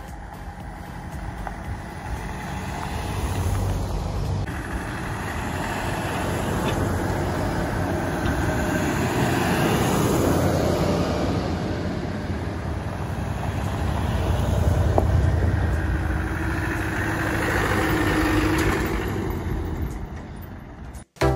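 Land Rover engine and tyre noise as the vehicle drives along a rough unsurfaced green lane. The sound swells louder twice and cuts off abruptly near the end.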